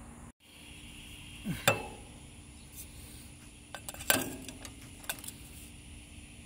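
Metal clinks and clanks of tools or parts being handled, with two louder clanks about one and a half and four seconds in and a few lighter ticks between, over a faint steady hum.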